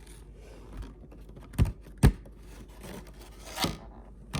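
Hands handling a plastic card sleeve and card packaging: light scraping and rubbing, with two sharp knocks about one and a half and two seconds in and a short scrape near the end.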